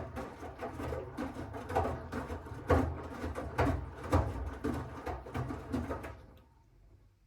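Miele W1 front-loading washing machine turning its drum during the wash: wet laundry tumbling and thudding in the drum over the low hum of the drive motor, in an uneven run of knocks. The drum stops about six seconds in, as it pauses between turns.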